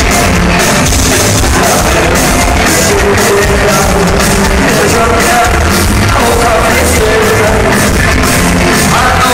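Rock band playing loud live, with guitars, a steady fast drumbeat and a singer, heard from among the crowd in a large hall.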